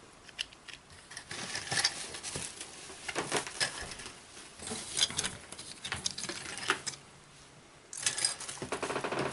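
Small wargaming miniatures and loose parts clicking and clattering as they are handled and dropped back into a box, in scattered bursts. A denser rustle follows near the end.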